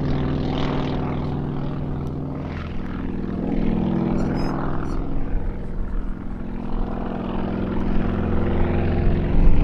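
Sukhoi aerobatic plane's nine-cylinder radial engine and propeller running at power through a hesitation roll, a steady, many-toned drone that swells a little in the middle and grows louder near the end.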